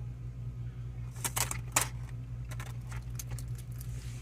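Light clicks and rattles of small hard objects over a steady low hum: a cluster of sharp clicks about a second in, then scattered smaller ticks.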